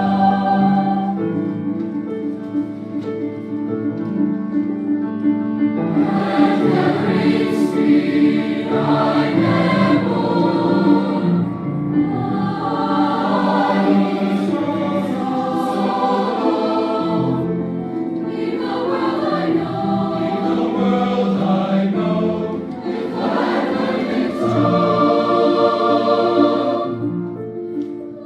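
Honor choir singing a passage in parts, voices holding chords that shift from one to the next, easing off a little near the end.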